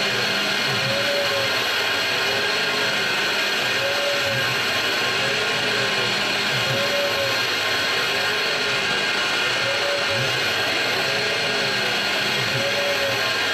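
PM-727M CNC mill milling a bore in an aluminium block: steady spindle and cutting noise, with the stepper-driven axes whining in pitch sweeps that rise and fall as the cutter circles the hole, roughly once every three seconds.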